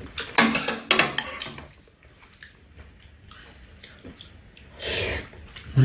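Metal chopsticks and spoons clicking against stainless steel bowls several times in the first two seconds, then a quiet spell and a short rushing noise about five seconds in.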